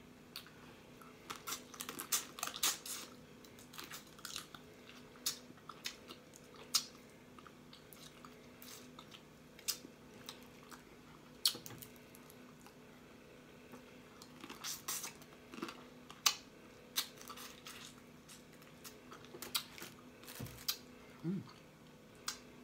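Eating boiled blue crabs: chewing and lip smacking with sharp cracks and crunches of shell, in scattered clicks that come in several quick flurries.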